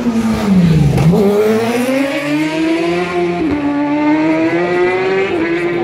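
Racing motorcycle engine coming down in revs as it slows, lowest about a second in, then accelerating hard away through the gears, with upshifts about three and a half and five and a half seconds in.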